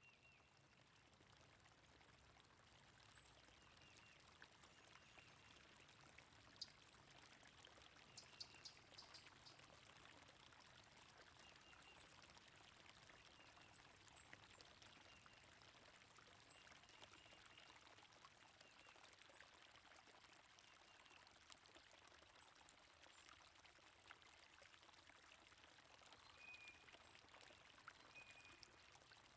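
Faint, steady flowing stream water with birds chirping, short high chirps scattered throughout.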